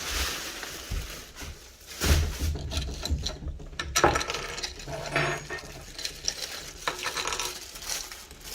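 Small metal parts and tools being handled and sorted by hand: irregular clicks, clatter and rustling, with a few dull knocks.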